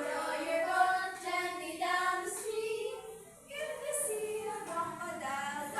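Young children singing a song together, held notes in a sing-song tune, with a short break about halfway through.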